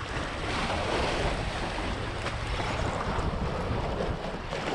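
Sea waves washing against the rocks and concrete tetrapods of a jetty, with wind buffeting the microphone.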